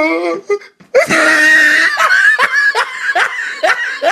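A drawn-out wavering voice ends just as it begins. From about a second in comes loud laughter: a run of short rising "ha" bursts, about two or three a second.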